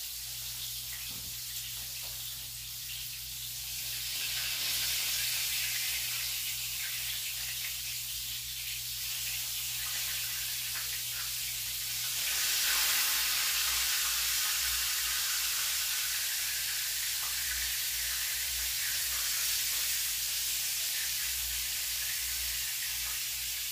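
Battered cauliflower pieces frying in hot oil in a pan, sizzling steadily; the sizzle grows louder about four seconds in and again about twelve seconds in.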